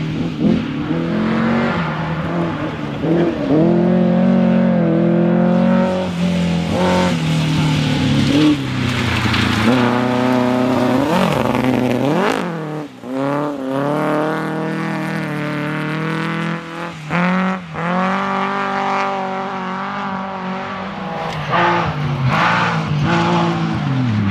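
Rally car engines revving hard, the pitch climbing and dropping repeatedly as the drivers go on and off the throttle and shift gears, with a sharp drop in pitch as a car passes about halfway through. Some tyre noise is mixed in.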